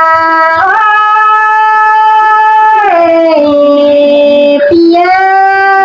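A woman singing long, held notes in Tai folk style (hát Thái), each sustained a second or two and sliding up or down into the next, over a backing track with a soft, steady beat.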